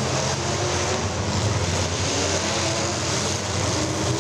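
Several demolition derby cars' engines running and revving at once, a dense, steady din.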